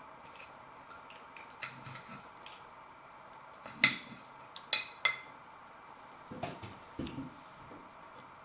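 Cutlery clinking and scraping on a plate in a series of sharp clinks, the loudest a few seconds in.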